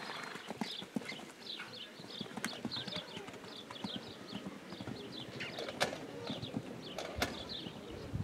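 Horse's hooves cantering and landing on a sand arena footing during a show jumping round, with two sharp knocks about six and seven seconds in.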